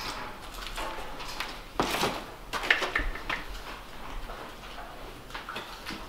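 Milking-parlour handling noise: scattered knocks, scrapes and short rustling hisses, loudest a little before three seconds in, as cows stand in metal stalls and their teats are dipped.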